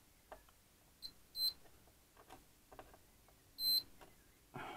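Digital multimeter's continuity bleeper giving three short high beeps, the last slightly longer, as its test probes are touched to transistor legs on an amplifier circuit board, with faint clicks of the probe tips.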